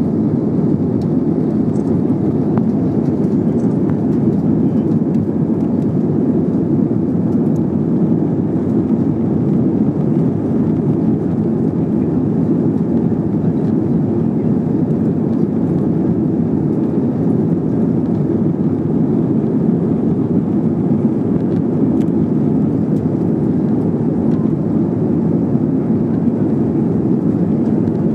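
Airbus A320 cabin noise during the climb after takeoff: the jet engines and rushing air make a constant low rumble that stays level throughout.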